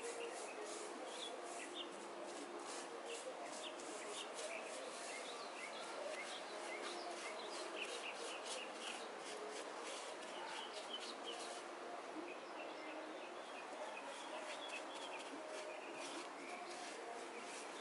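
Small hand trowel scraping and rubbing over a cement baluster in repeated short strokes.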